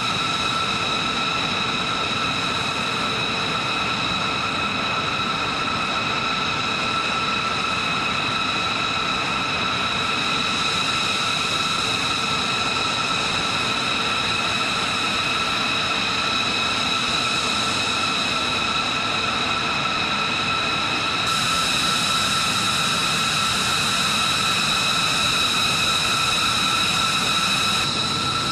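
B-2 Spirit bomber's four General Electric F118 turbofan engines idling: a steady high-pitched whine over a rushing rumble, a little louder about three quarters of the way through.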